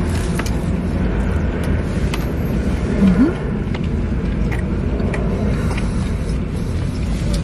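Steady low rumble inside a car's cabin, with a few faint clicks and rustles from food packaging. A short rising hum comes about three seconds in.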